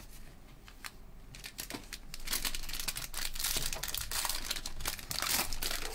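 A foil trading-card pack wrapper being torn open and crinkled by hands in nitrile gloves: a few faint clicks at first, then steady crackling and crinkling from about two seconds in.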